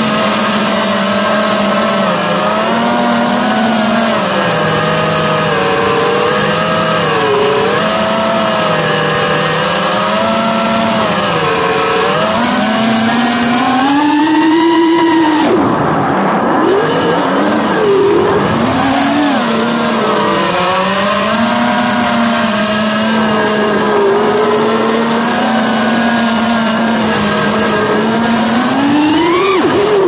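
FPV quadcopter's brushless motors and propellers whining, the pitch rising and falling with the throttle. About halfway through the pitch climbs to a high surge, then swings quickly up and down during hard manoeuvres, and it climbs again near the end.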